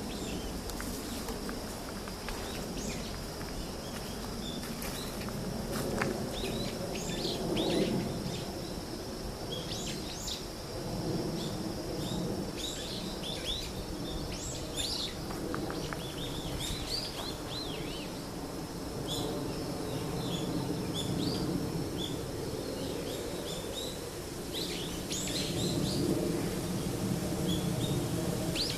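Wild birds chirping in many short, scattered calls, over a steady low background rumble and a faint, steady high-pitched tone.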